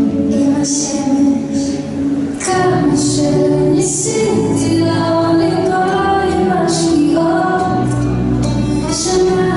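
Recorded Israeli folk-dance song: a woman singing a melody over a percussion beat and bass, with the bass swelling near the end.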